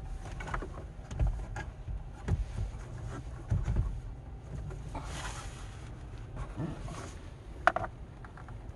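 Scrapes, soft knocks and rustling as a car stereo head unit is slid out of the dashboard and handled, with a longer scrape about five seconds in and one sharp plastic clack near the end, over a steady low rumble.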